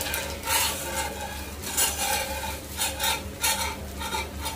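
Vegetable uttapam sizzling on a hot cast-iron tawa, with irregular crackling bursts about twice a second as the vegetables (carrot, capsicum, chilli, onion) cook and give off their water.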